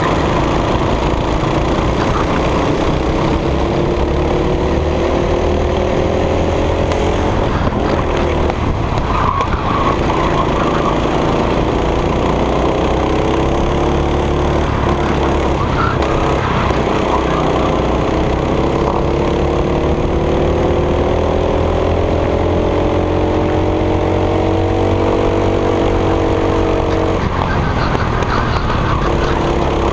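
Go-kart engine heard from the driver's seat at racing speed, climbing steadily in pitch along the straights and dropping away sharply each time the throttle is lifted for a corner; the longest climb lasts about ten seconds before it cuts off near the end.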